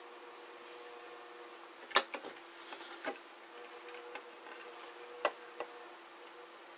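Plastic toy submarine being handled on a tabletop: a few sharp clicks and knocks, the loudest about two seconds in and another strong one about five seconds in, over a faint steady hum.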